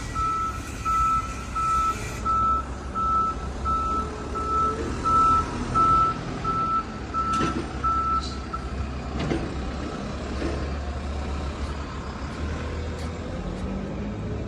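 Backhoe loader's reversing alarm beeping at an even pace, about three beeps every two seconds, over the steady running of its engine. The beeping stops about eight seconds in, and a few sharp knocks or hisses follow while the engine keeps running.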